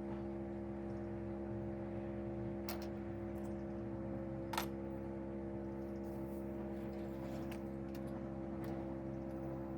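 A steady hum holding several even tones, with two light clicks, about three and four and a half seconds in.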